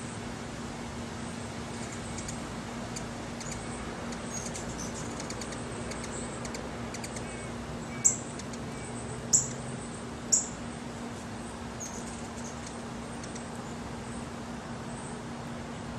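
Short, high-pitched bird chirps: a few faint ones, then three loud single chirps about a second apart near the middle, over a steady low hum.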